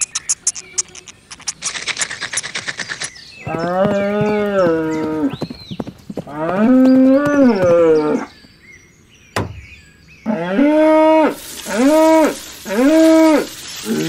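Cows mooing: two long moos, then three shorter ones in quick succession. A fast clicking rattle comes before them, and a single sharp click falls between the long and the short moos.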